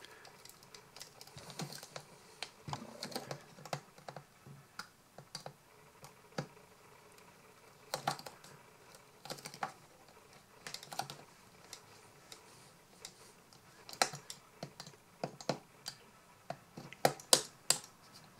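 Stanley knife blade cutting along the glued seam of a Philips tea light's plastic casing: irregular sharp clicks and scrapes as the blade is pushed through the plastic, coming more often and louder in the last few seconds.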